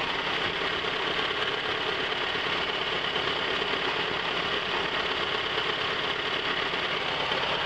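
1997 Toyota RAV4's four-cylinder engine idling roughly and steadily, the rough idle taken by the owner for a dead cylinder, number 2 not firing.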